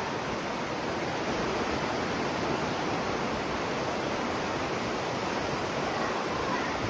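A steady, even rushing hiss with no clear rhythm.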